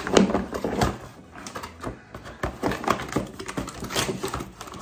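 Cardboard packaging being handled: a stiff die-cut cardboard insert lifted and pulled out of its box, scraping and knocking in an irregular run of sharp clicks and taps, loudest in the first second.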